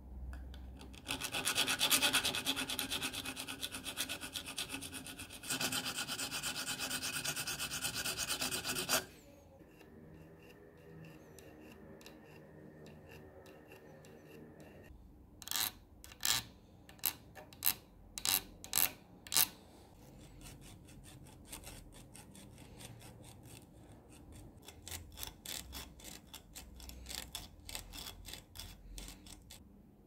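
Flat metal file rasping across the end of one of the lighter's small copper screws, which is clamped between wooden blocks in a vise. A long run of rapid, loud strokes comes first; after a quieter spell about eight separate strokes follow midway, then fainter strokes near the end.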